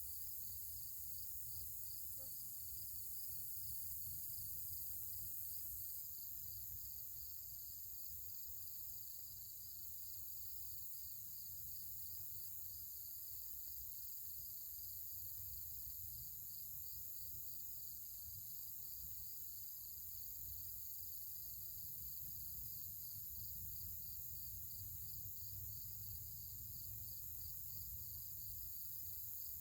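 Insects chirping outdoors: a steady chirp that pulses evenly, about two or three times a second, over a constant high hiss of more insects, with a faint low rumble underneath.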